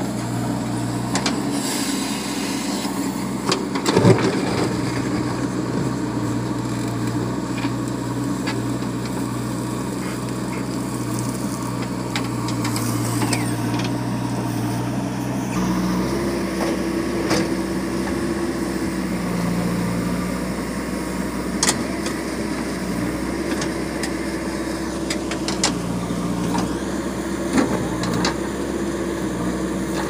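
JCB 3DX backhoe loader's diesel engine running steadily as the machine works, its note shifting up and down from about halfway through as the backhoe digs. There is a sharp knock about four seconds in and a few lighter clicks later.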